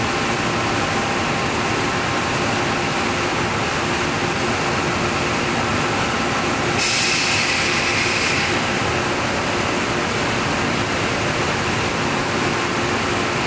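Heavy paper mill machinery running steadily, a constant noise with several steady hum tones through it. About seven seconds in, a loud hiss cuts in for about a second and a half, then stops.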